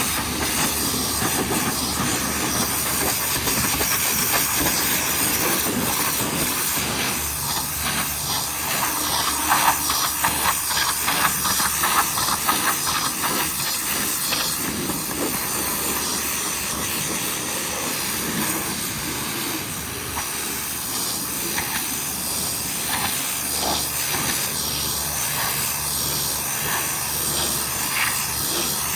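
High-pressure washer lance spraying water: a loud, steady hiss with a low hum underneath, fluttering unevenly for a few seconds near the middle.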